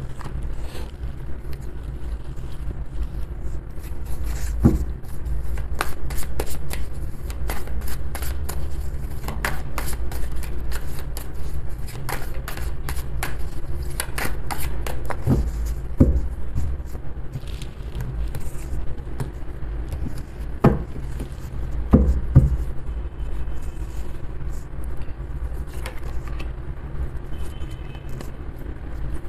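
A deck of tarot cards being shuffled by hand: a long, irregular run of light clicks and scrapes as the cards slide and snap against each other, with a card set down on the table. A steady low hum runs underneath.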